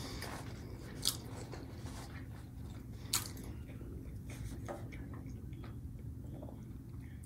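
Chewing of breaded fish sticks, mouthfuls of soft bread and fish, with sharp crunchy clicks about a second in and again about three seconds in.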